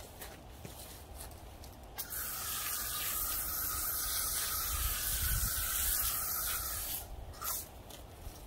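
Water spraying steadily onto a concrete driveway to wet it down before grinding. It starts about two seconds in and cuts off about five seconds later.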